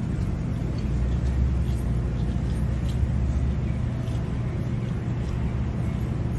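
Steady low rumble of road-vehicle noise, with a few faint ticks over it.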